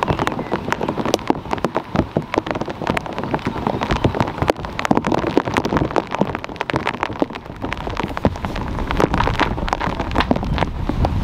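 A dense, irregular patter of many small taps and crackles close to the microphone.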